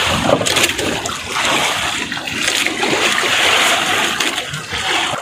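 Sea water splashing and sloshing against the side of a small fishing boat, a continuous rushing splash.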